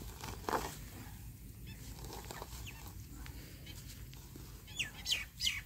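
Hand post-hole auger being twisted into wet soil, with faint scraping and soft clicks. A few quick, falling bird chirps come in near the end.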